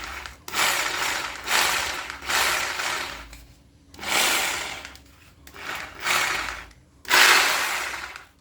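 Wondercut WC-GP-2-26B 1600-watt rotary hammer drill run free in about six short bursts on the trigger. Each burst rises and then dies away as the trigger is released.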